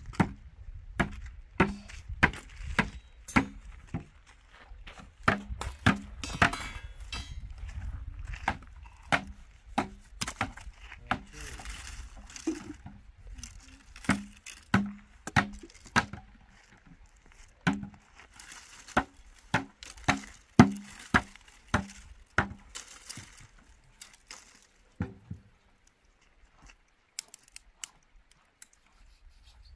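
Chopping on wood: irregular sharp knocks, about one or two a second, thinning out near the end.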